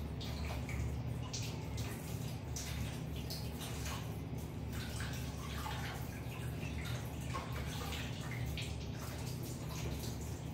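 Macaque eating a fried breadstick, wet-mouthed chewing and lip-smacking heard as irregular small clicks and smacks, over a steady low hum.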